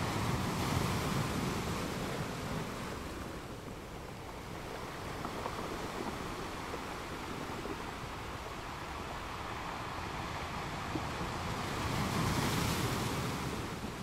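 Sea waves washing in as surf, a steady rush of water that swells twice: about a second in and again near the end.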